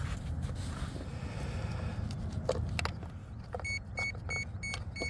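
A few light plastic clicks and knocks from handling the boat and plugging in the battery, then a quick run of short, identical electronic beeps, about four a second, from the boat's brushless motor as its Seaking ESC powers up on the freshly connected battery.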